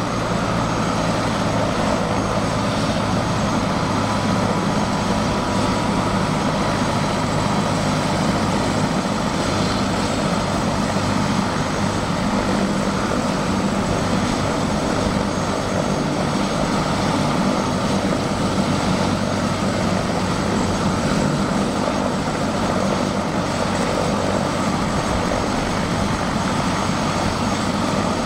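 Airbus AS350 Écureuil helicopter running steadily on the ground, its single turbine engine and main rotor turning.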